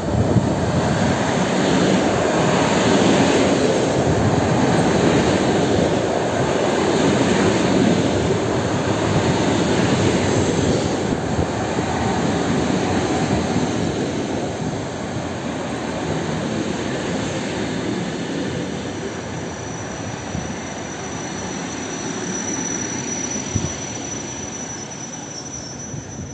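Suburban electric train pulling into a station, its wheels and carriages rumbling past close by. The rumble slowly fades as the train slows, and a thin high whine comes in over the last several seconds as it draws to a halt.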